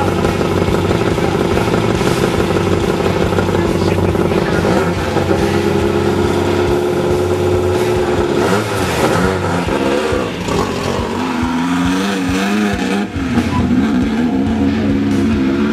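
Desert race buggy's engine running steadily at idle, then from about halfway its pitch starts swinging up and down as it is revved.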